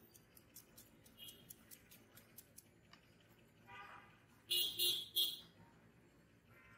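Knife slicing through an onion held in the hand, a run of quick, sharp cuts about four a second. About halfway through, three short, loud, high-pitched sounds from the street ring out over the cutting.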